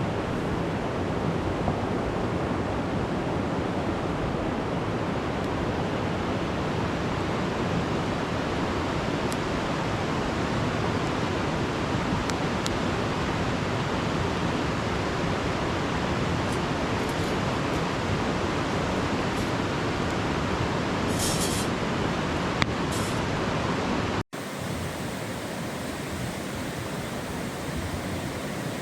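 Steady rushing of a river running close by. Near the end it drops out for an instant and comes back a little quieter.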